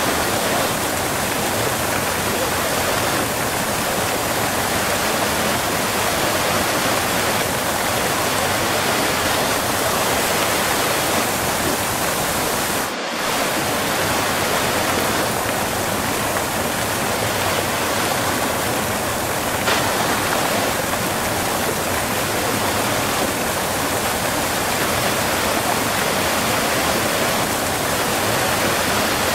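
Close-up waterfall: a steady, dense rush of falling water, with one very brief dip in level about halfway through.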